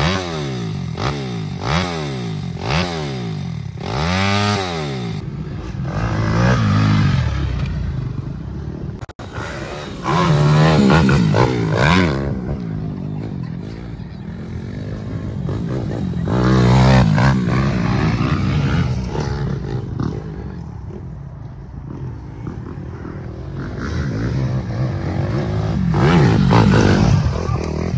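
Dirt bike engine revving and shifting as it rides a dirt track, the pitch climbing and dropping over and over. It grows loudest as the bike comes near, about ten seconds in, again around seventeen seconds, and near the end.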